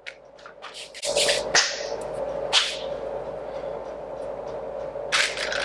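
Bat grip tape and its packaging being handled: a few short crinkling rustles over a steady hum.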